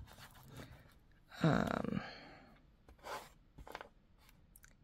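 Small clicks of beads being picked up and set down on a flocked bead design board, with one short wordless vocal sound from the beader about a second and a half in.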